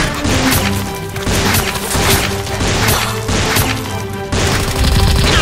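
Action-film background music with hard percussive hits about twice a second.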